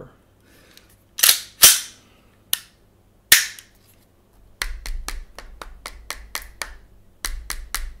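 Gas blowback airsoft pistol, a WE Glock 19, going off with loud sharp cracks and a short hiss of gas, three times with a sharp click between, followed by a run of quick light clicks, about five a second, as the trigger and parts are worked.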